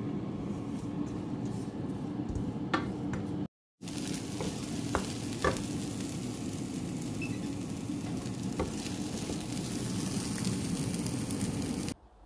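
Grated carrot, cashew nuts and seeds sizzling in a frying pan as they are stirred with a wooden spatula, with a few light knocks of the spatula against the pan. The sound cuts out briefly about three and a half seconds in.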